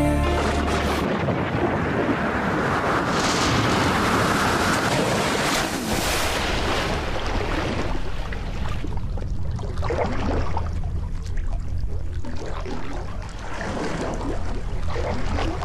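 A background song cuts off about a second in, leaving an underwater camera's own sound: a steady rushing hiss and rumble of water against the housing. It is loudest in the first few seconds, then lower and uneven, with short bubbly bursts of a scuba diver's exhaled air.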